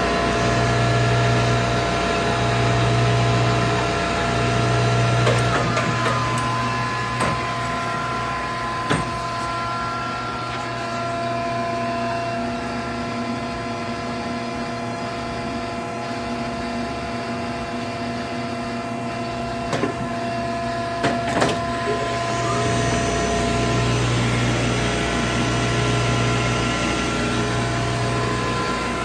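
Seavey back-knife wood lathe running: a steady machine hum with several whining tones, and a low hum that swells and drops about every two seconds near the start and again near the end. A few sharp metallic knocks come in the middle.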